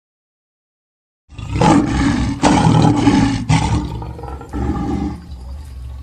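Lion roaring: a few loud, deep roars starting suddenly about a second in, then fading away toward the end.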